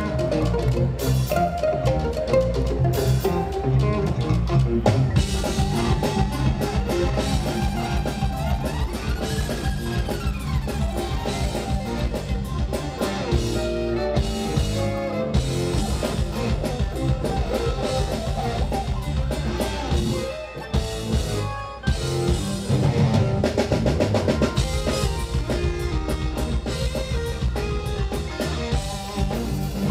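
Live progressive rock band playing an instrumental passage: a drum kit driving under electric guitars, bass, keyboards and violin. The band briefly drops back about two-thirds of the way through, then comes in loud again.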